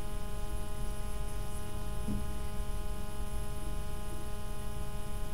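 Steady electrical mains hum with a buzz of many even overtones, unchanging throughout.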